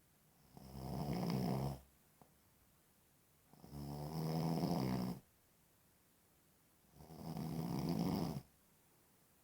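A sleeping person snoring: three snores, each about a second and a half long, coming roughly every three seconds with quiet in between.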